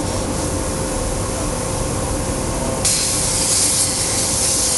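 ESAB CNC plasma cutter's torch arc switches on about three seconds in with a loud, steady hiss as it starts cutting 1/4-inch mild steel. Before that there is a steady machine hum with a thin constant tone.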